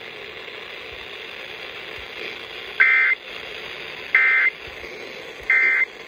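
Emergency Alert System end-of-message data bursts playing over an FM radio: three short buzzy bursts of two-tone digital data, about a second and a half apart, over steady broadcast hiss. The bursts signal the end of the alert message.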